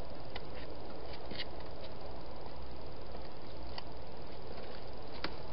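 Hedgehog feeding at a bowl inside a plastic feeding box: a handful of short crunches and clicks, scattered over a steady hiss.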